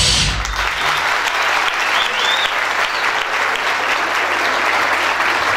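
Audience applauding, with the dance music cutting off about half a second in.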